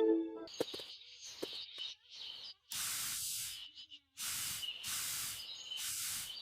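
Several short hissing spray bursts, each under a second long, coming about once a second in the back half, over a faint steady high tone.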